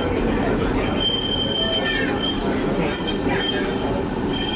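Tram running along its rails, heard from inside the car: a steady rumble with short high-pitched wheel squeals about a second in and again near the end.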